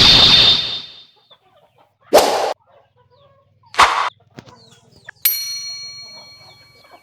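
Three loud, harsh squawks, like a chicken's, about two seconds apart, then a single metallic ding that rings on and slowly fades.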